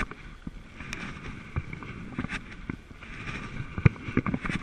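Sea kayak paddling: a wooden double-bladed paddle dipping into and pulling through the sea on alternating sides, with splashes and drips off the blades. The sharpest splashes come about four seconds in.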